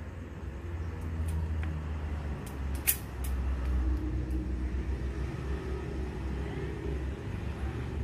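Low, steady rumble of a nearby motor vehicle engine running, with faint pitched engine tones in the second half. A single sharp click sounds about three seconds in.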